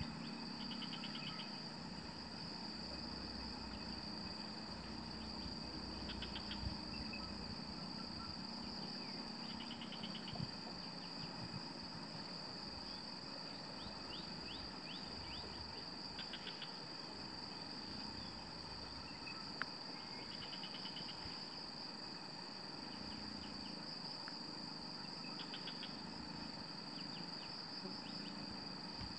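Steady, high-pitched insect chorus, with a shorter pulsing call repeating about every four to five seconds and a few faint clicks.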